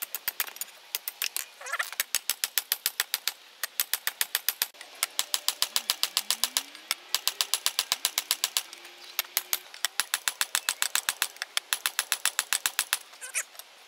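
Hand hammer striking red-hot leaf-spring steel on a steel block anvil: quick runs of sharp metallic blows, many a second, with short pauses between runs, as the steel is hot-cut over the block's sharp edge.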